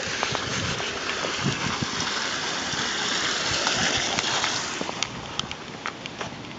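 Water falling in a courtyard waterfall, a steady splashing that grows louder through the middle and then eases off, with a few light clicks near the end.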